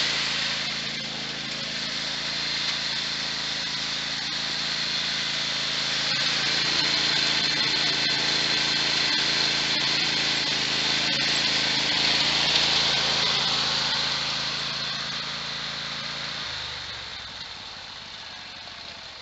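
Craftsman riding lawn mower's engine running steadily as the mower drives past, loudest about two-thirds of the way through and then fading. Near the end a deeper engine hum from a Kawasaki utility vehicle takes over.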